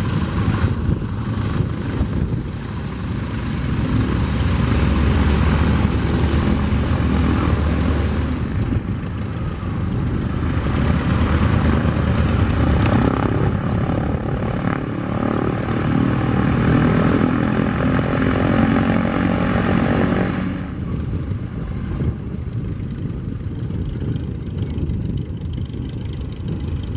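Propeller biplane engines running at taxi power as the aircraft roll past: first a Nieuport 28C-1 replica, then a de Havilland DH.82 Tiger Moth with its four-cylinder Gipsy Major engine and spinning propeller. The sound turns duller about three quarters of the way through.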